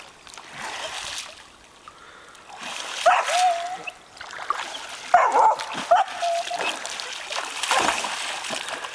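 A dog bounding through shallow lake water, splashing, and giving several short, high-pitched excited whines, about three seconds in and again around five and six seconds. Near the end it leaps and throws up a big splash.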